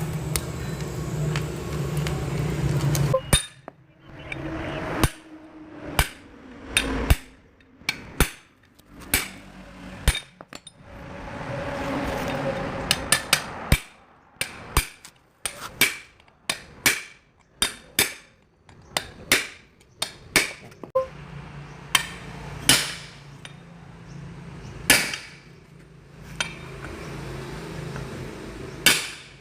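A low steady hum for about three seconds, then a long run of sharp hammer blows on metal at an uneven pace, roughly one to two a second. This is typical of hammering a rubber bushing or mount in or out during suspension work.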